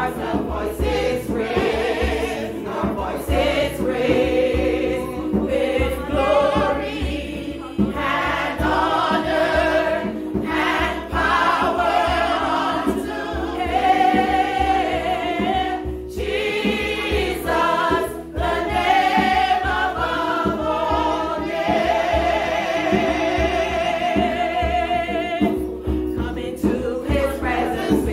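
Gospel worship singing: women's voices leading a praise chorus, with held, wavering notes, over instrumental backing with a steady beat in the bass.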